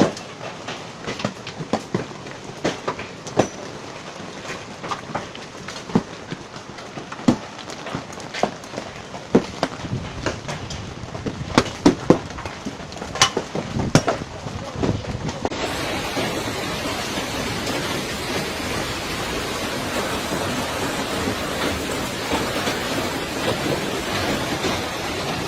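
Hailstones striking hard surfaces, with many separate sharp clacks over a steady patter. About fifteen seconds in it changes abruptly to a dense, steady roar of heavy hail.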